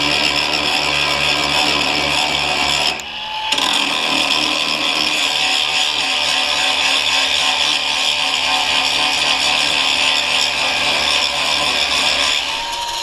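Power tool or engine-driven machine running steadily, a low hum under a loud hiss, with a brief break about three seconds in.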